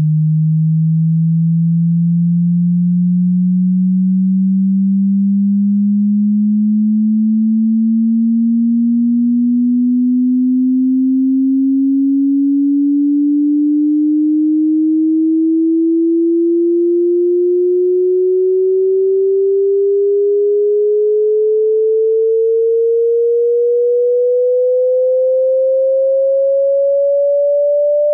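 Hearing-test sine-wave frequency sweep: a single pure tone at a steady, loud level, gliding slowly and evenly upward in pitch from a low hum to a mid-range tone.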